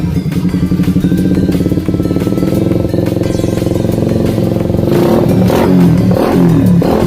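Suzuki Raider R150 motorcycle with an aftermarket power pipe exhaust, idling with a rapid pulsing exhaust note. About five seconds in it is revved in a few quick throttle blips, the pitch rising and falling.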